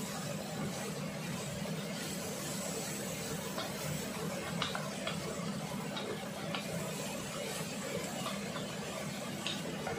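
Vegetables being stir-fried in a wok over a gas flame, a steady hum and hiss. A wooden spatula knocks lightly against the wok a few times.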